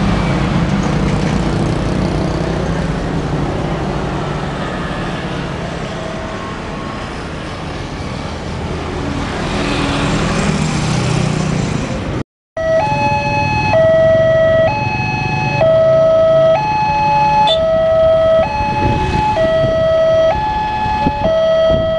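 Road traffic passing, with engine noise from a pickup truck and motorcycles. After a cut about 12 seconds in, a railway level crossing's electronic warning alarms sound: two alarms with different tones, each switching between two pitches about once a second, warning that a train is approaching.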